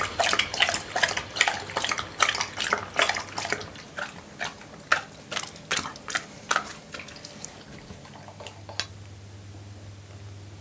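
Labrador retriever lapping a thick smoothie from a ceramic bowl: quick wet slurping laps, about three a second, that thin out and stop about nine seconds in.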